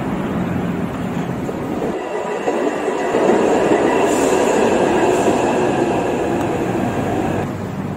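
Train running, heard from inside the carriage: a steady rumbling ride noise that grows brighter and a little louder about two seconds in, with faint steady tones over it.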